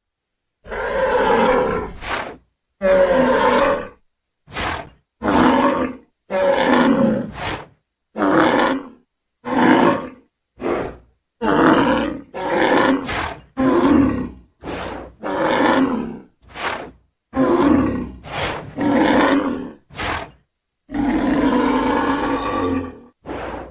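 Stock dinosaur sound effect: a string of about twenty short roars and growls, each under two seconds, cut apart by dead silence, with a longer roar near the end.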